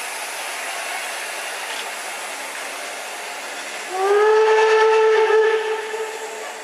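Train horn sounding one steady blast of nearly two seconds, starting about four seconds in with a short rise in pitch, over a steady rushing noise from the railway.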